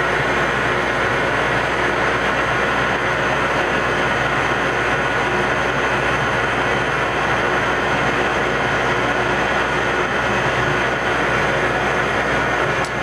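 Metalworking machine tool running steadily while machining a spherical seat in a locomotive throttle part, a continuous mechanical noise with several steady whining tones.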